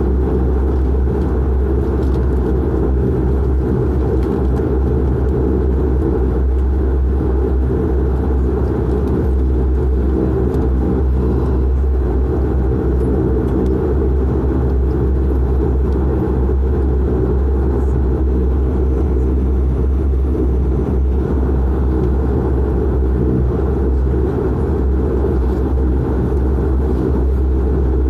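Dash 8-400's Pratt & Whitney PW150A turboprop and propeller running on the ground, heard from inside the cabin beside the engine: a loud, steady drone with a deep hum beneath it.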